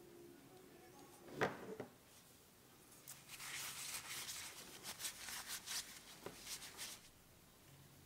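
A sharp knock about a second and a half in, then about four seconds of scratchy, crackly rustling as a wad of paper towel is rubbed and crumpled by hand on a cutting mat.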